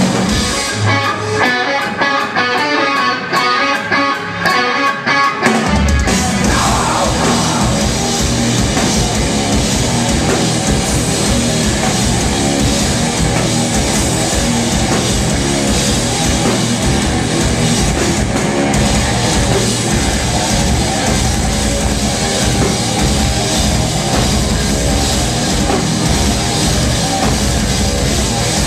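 Live rock band playing, with electric guitar and drum kit. After a sparser passage of sharp drum hits, the full band comes in heavily with bass and drums about five seconds in and plays on steadily.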